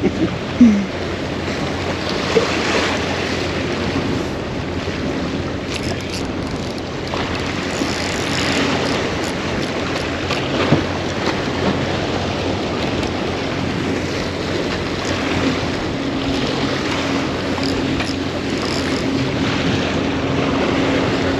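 Steady wash of surf and wind buffeting the microphone, with scattered small clicks; a faint steady drone joins in over the last few seconds.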